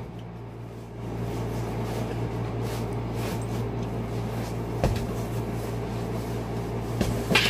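Motorhome over-cab bunk bed being slid out and its mattress handled: a few short knocks, about five seconds in and again near the end, over a steady low mechanical hum.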